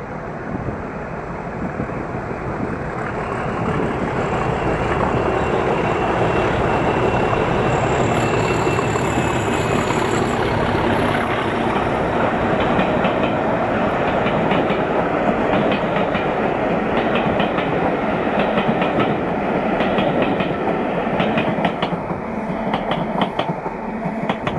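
Two Class 37 diesel locomotives (37685 and 37516), with their English Electric V12 engines, pass at the head of a rake of coaches. The engine sound builds over the first few seconds, with a faint high whine. Through the second half the coaches' wheels click rhythmically over the rail joints.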